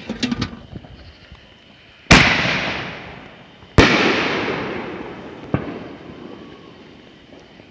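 5-inch canister artillery shells bursting overhead: two loud booms, about two seconds and nearly four seconds in, each followed by a long rolling echo that fades over a couple of seconds. A smaller, sharper crack comes about five and a half seconds in, after a few small pops at the very start.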